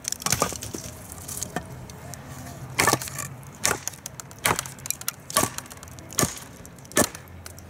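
A TOPS Bushcrafter Kukuri 7 kukri, a heavy 1095 carbon-steel blade, chopping a notch into a wooden branch: about eight sharp chops, a little under a second apart.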